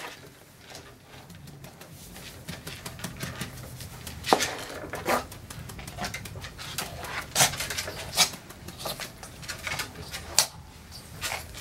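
Scattered sharp clicks and knocks, roughly one a second, as a toy poodle in a clear plastic cone collar shifts about on a grooming table while being held.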